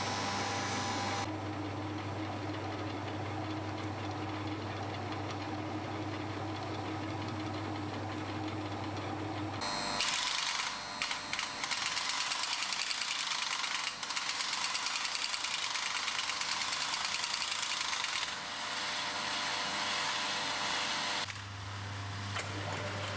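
Workshop machine tools running: a steady electric motor hum, then about ten seconds in, a louder rhythmic mechanical chatter with hiss that pulses several times a second. The hum returns near the end.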